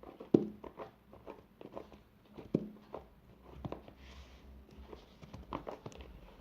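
Fluffy shaving-foam slime being squeezed and kneaded by hand, giving irregular wet clicks and squelchy pops, the loudest just after the start and again about two and a half seconds in.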